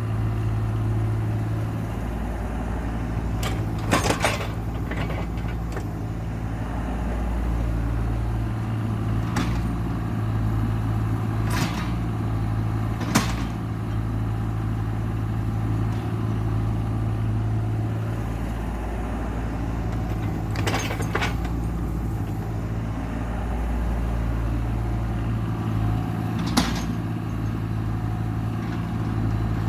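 Heavy equipment engine running steadily with a low hum. A few sharp knocks stand out, about six spread through it.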